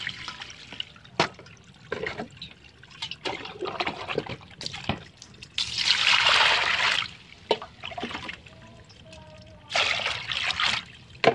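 Water poured from a bowl into a stainless-steel basin: two splashing pours of about a second each, one past the middle and one near the end, with smaller trickles earlier. A few sharp knocks come in between.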